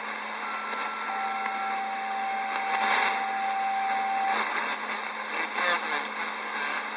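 CB radio receiver on channel 28 hissing with open-band static during skip conditions. Two steady whistles ride on the hiss: a higher one for about a second near the start, and a lower one lasting about three seconds. Faint wavering traces of distant signals come later.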